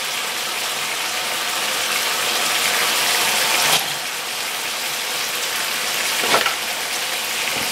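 Vegetables sizzling in oil in a hot frying pan: a steady hiss that slowly swells, then drops back a little about four seconds in, with a short tick near the end.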